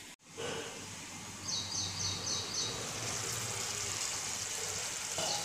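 Bottle gourd (lauki) curry sizzling softly in an open pan, with a bird chirping about five times in quick succession a second and a half in.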